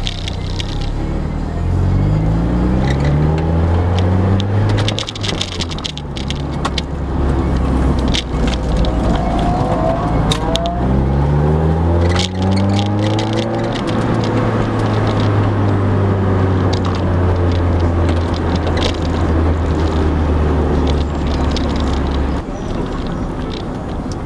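Mazda MX-5's four-cylinder engine heard from inside the car, pulling up through the revs twice and then running at a steady pitch before easing off near the end. Scattered clicks and knocks come through about a quarter of the way in and again around the middle.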